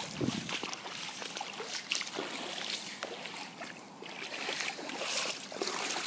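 Feet wading through shallow floodwater, with repeated irregular splashes and sloshing.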